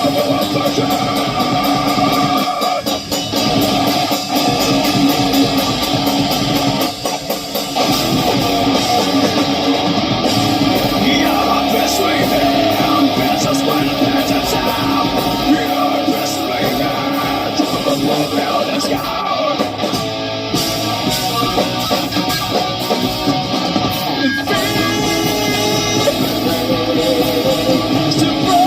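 Rock band playing an instrumental passage, with electric guitar to the fore.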